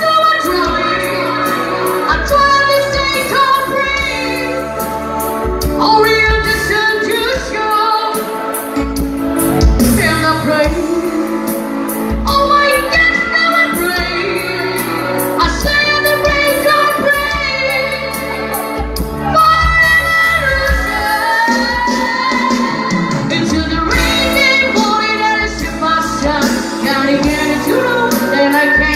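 Live band of electric guitar, drums and keyboard playing a pop-rock cover while a singer sings lead into a microphone, holding long notes.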